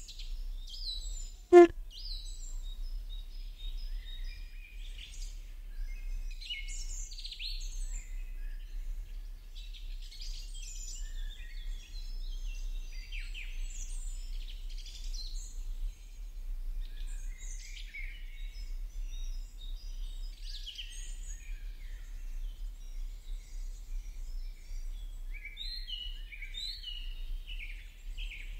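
Many small birds chirping continuously, with a single sharp click about a second and a half in and a steady low hum underneath.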